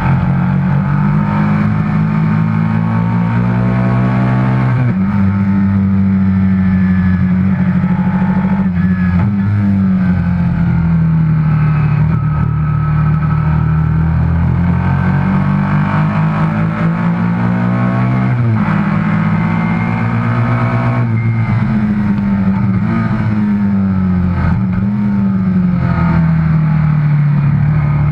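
Pre-1982 racing motorcycle engine heard onboard at full race pace. The engine note rises and falls through the corners and climbs, then drops sharply at an upshift, about five seconds in and again about two-thirds of the way through.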